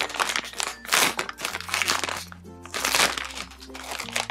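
Thin polypropylene packaging bag crinkling as hands crumple it and reach inside, with loud crackles about a second in and again around three seconds in. Background music with a steady bass line plays underneath.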